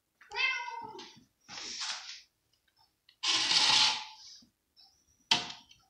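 A cat gives one short meow, followed by rustling and scraping as a plate is set down and moved on the floor, with a sharp clack near the end.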